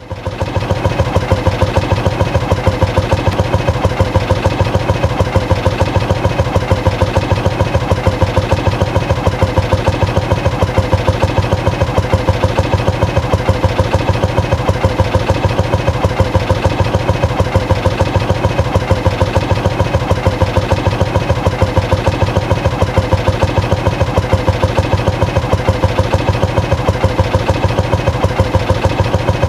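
Motorcycle engine idling with a steady, even pulsing beat, rising to full level in the first second and then holding constant.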